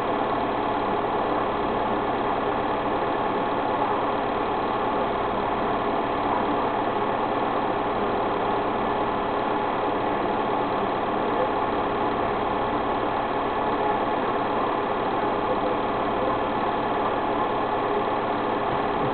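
A small motor running steadily: an even mechanical whir with a few constant hum tones that stays at the same level throughout.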